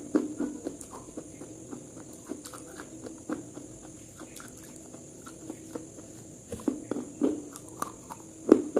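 Irregular light taps and knocks over a steady low hum, with a few louder knocks near the end.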